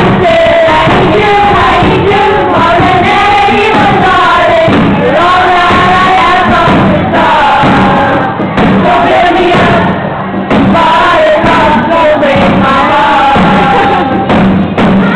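A group of girls singing a song together, loud and close, with a short lull about two-thirds of the way through.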